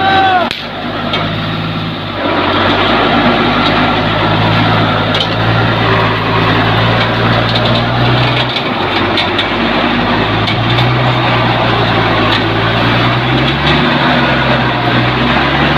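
Engine of a bamboo-loaded REO 6x6 truck running hard under load as it climbs a steep off-road track. The engine note rises about two seconds in, drops back about halfway through and builds again near the end. A brief falling squeal is heard at the very start.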